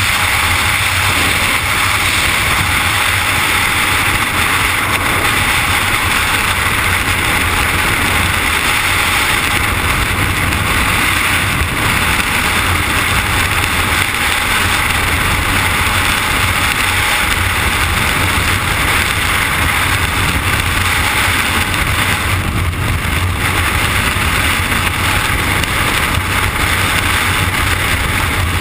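Loud, steady wind noise from the freefall airstream rushing over the camera's microphone during a tandem skydive.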